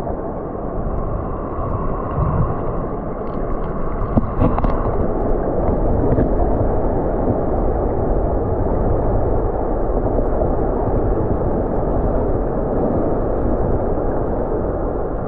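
Steady rushing of a mountain stream's water, dull and low with little hiss, with a few faint clicks a few seconds in.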